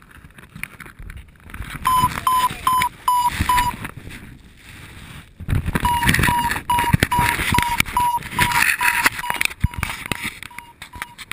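Paragliding variometer beeping, about three short beeps a second at one steady pitch, its climb tone. It stops for about two seconds, then beeps on and fades near the end, over wind buffeting the microphone and rustling of harness and gear.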